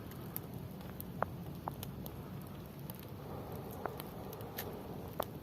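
Wood campfire crackling, with scattered small ticks and about four louder sharp pops.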